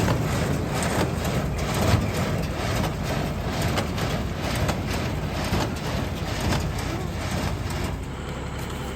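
A 1960s New Holland hay baler working behind a running tractor engine. A low steady drone is overlaid with a busy mechanical clatter of repeated knocks from the baler's moving parts. The sound shifts and gets a little quieter about eight seconds in.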